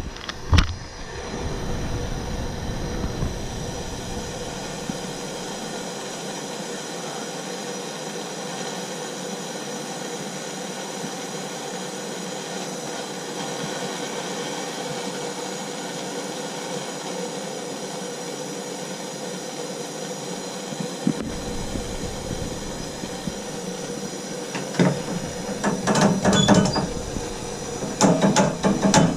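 Gas plumbing torch burning with a steady rushing hiss as it heats a tub and shower valve. From about 25 seconds in, a run of sharp clicks and knocks starts and grows louder toward the end.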